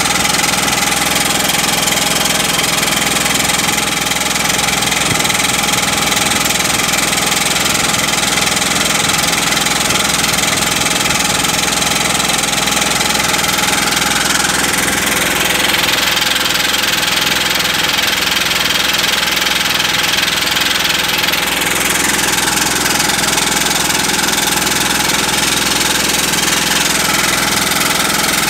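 Pneumatic crawler drill (MINDRILL CD100) running at work, a loud, steady mix of machine noise and air-driven hammering. Midway through, the high part of the noise sweeps up and then back down over several seconds.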